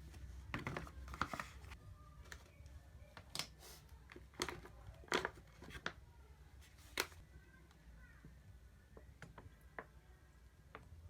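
Scattered light clicks and taps at an irregular pace, a few louder ones in the middle few seconds, typical of small objects being handled.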